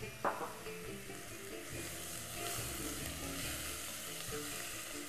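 Spices frying in hot oil in a saucepan, sizzling as they are stirred with a wooden spoon; the sizzle swells about two seconds in. A single short knock sounds just after the start, with background music playing throughout.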